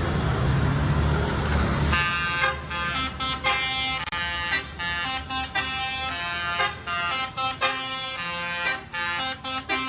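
Basuri multi-tone 'telolet' bus horn playing a tune of short pitched notes, one after another with brief gaps. It starts about two seconds in, after a loud low rumble.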